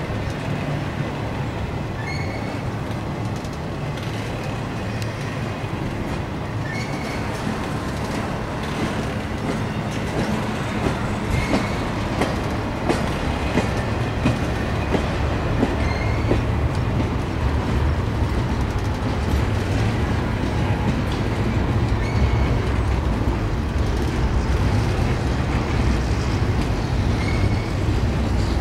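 Empty intermodal well cars of a freight train rolling past: a steady rumble of wheels on rail with clicks over the rail joints and short, high wheel squeaks every few seconds. The rumble grows louder about halfway through.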